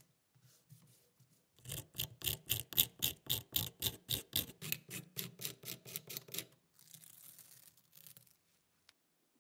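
Masking tape on a wooden handle blank being rubbed and scored: a fast run of scratchy strokes, about four a second, then softer crackling near the end as tape is peeled off.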